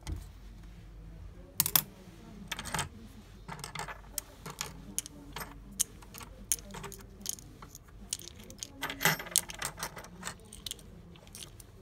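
Plastic-headed metal key blanks clinking against each other and clacking on a wooden tabletop as they are handled and sorted: irregular sharp clicks, loudest about a second and a half in and again about nine seconds in.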